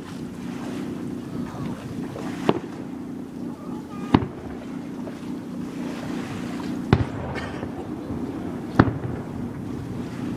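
Fireworks shells bursting: four sharp bangs at uneven intervals, over a steady low rumble.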